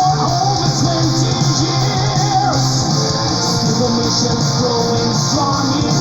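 Neoclassical melodic metal song playing, led by electric guitar, with a melody line bending in pitch over a dense, steady backing.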